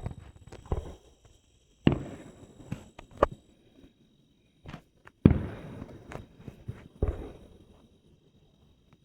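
Fireworks going off: a string of sharp bangs about every second or two, each echoing away, the loudest about five seconds in.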